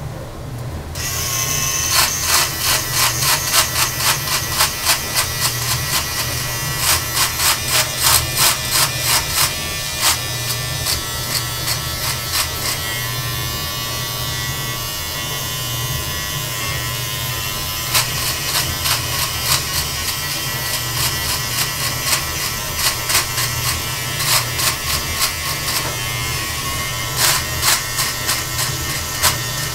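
Electric beard trimmer switching on about a second in and then buzzing steadily, with runs of crackling as its blades cut through beard hair in short strokes. A steady low hum runs underneath.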